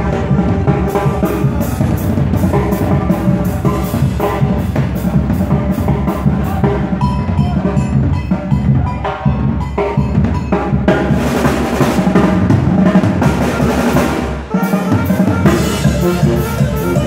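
Live banda music: tuba and saxophones playing over a steady drum beat, which dips briefly about fourteen seconds in and then picks up again.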